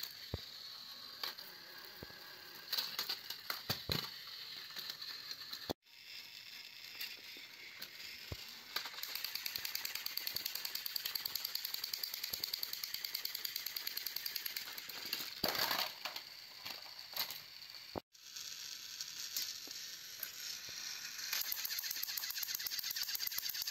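Battery-powered plastic toy trains running on plastic track: the rapid clicking whir of the small motor and gears, with scattered sharper clacks. The sound breaks off abruptly twice, about six seconds in and again near the two-thirds mark.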